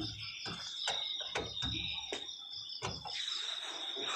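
A steady high-pitched insect trill, with scattered clicks and irregular low thumps over it.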